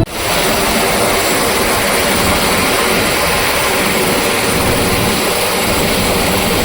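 Helicopter engine and rotors running with a steady rushing noise.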